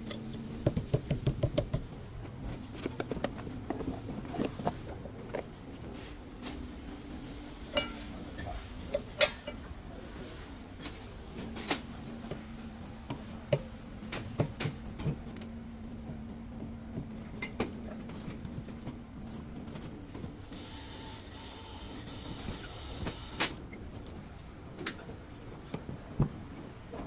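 Hand tools and metal parts being handled: a quick run of clicks at the start, then scattered clicks and knocks, over a steady low hum.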